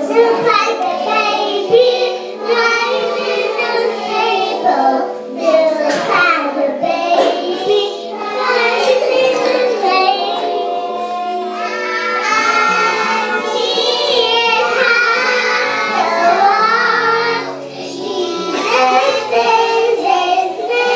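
Young children singing a song into a microphone over instrumental accompaniment.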